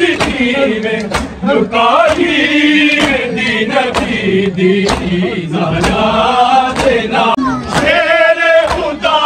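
Crowd of men chanting a noha together, with rhythmic matam: bare-handed slaps on bare chests about once a second, in time with the chant.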